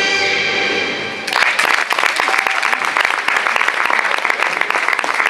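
Orchestral music with strings stops about a second in, and an audience breaks into applause that continues steadily.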